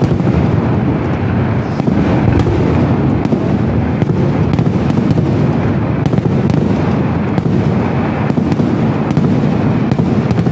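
Fireworks barrage: aerial shells and crackers going off in rapid, overlapping bangs that merge into a loud, continuous din, with sharp cracks standing out all through it.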